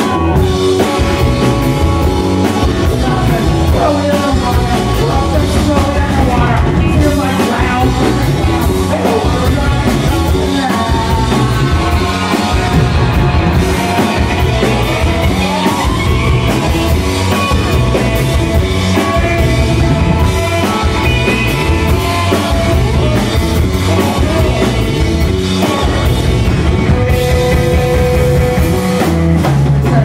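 Live rock band playing loud: electric guitars and drum kit with a steady beat, and a singer's vocals over the top.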